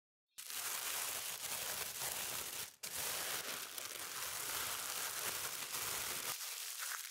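Thin plastic bag crinkling and rustling as sliced beef is kneaded inside it by hand, starting about half a second in, with a brief break near the three-second mark.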